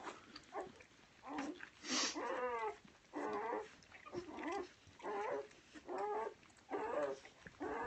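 Newborn golden retriever puppies crying: a run of short, high, wavering squeals, about one a second.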